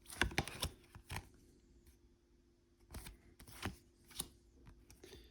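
Printed cardstock game cards being handled and flipped over: a series of short, light rustles and taps, a quick cluster at the start and then single ones every second or so.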